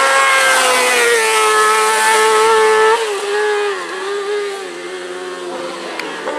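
Engine of an open-frame buggy-style hill-climb race car at high revs as it passes. About three seconds in the pitch steps down, and the engine carries on lower and quieter as the car pulls away.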